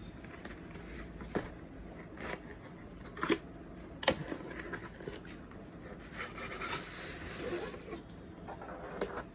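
Hands handling a drone's box and plastic parts: four sharp clicks and knocks in the first half, then a couple of seconds of scraping and rustling.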